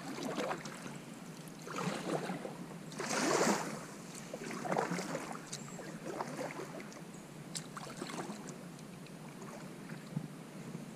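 Kayak paddle strokes swishing and splashing in the water, about one stroke every second and a half, the loudest splash about three seconds in.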